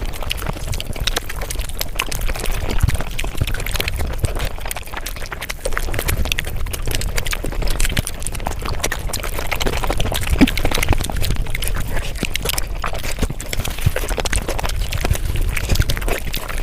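Mukbang eating sounds, a person's chewing and slurping, played back at five times normal speed so the mouth sounds run together in a dense, rapid stream of clicks.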